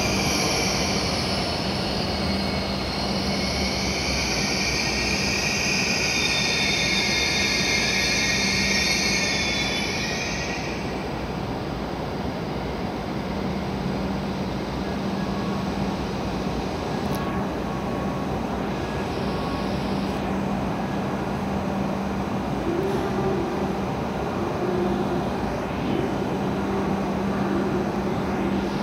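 W7-series Shinkansen train squealing high-pitched as it brakes into the platform. The squeal stops about ten seconds in as the train halts, and a steady low hum carries on.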